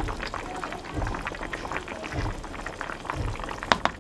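Chicken and potato stew bubbling at a simmer in a pot while a spatula stirs through it, with a few soft low thumps. Near the end come several sharp clicks of the spatula against the pot.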